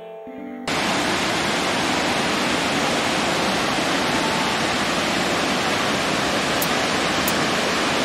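Steady rushing of a waterfall and stream cascading over rocks. It comes in abruptly under a second in as the music tail fades, then holds an even, full-range rush.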